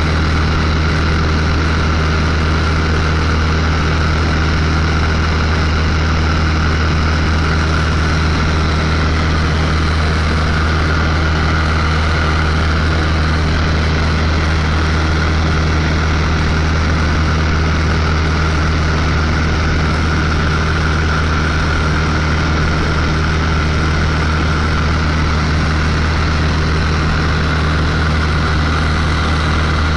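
Light high-wing propeller airplane's engine and propeller droning steadily in cruise, heard from inside the cabin: a constant low hum with higher overtones and no change in pitch or level.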